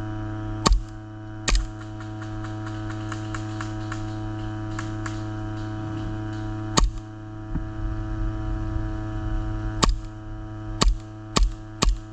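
Airsoft gun shots: single sharp cracks with a low thump, two about a second in, one each at about 7 and 10 seconds, then a steady string of about two a second near the end. Under them runs a steady electrical hum with many overtones.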